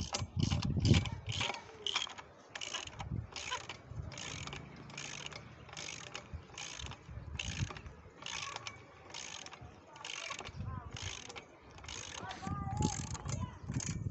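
Hand-tool work fixing a satellite dish mount to a concrete slab: a steady rhythm of short rasping, clicking strokes, a little more than one a second, with heavier mechanical noise in the first second and again near the end.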